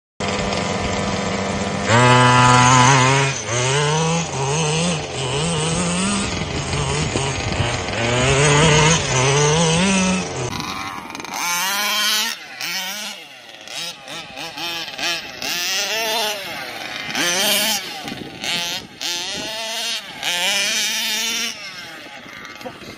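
Two-stroke petrol engines of large-scale RC buggies: idling steadily for about two seconds, then revved up and down over and over as the buggies drive. From about ten seconds in the engine sound is fainter and rises and falls as a buggy runs away across the field.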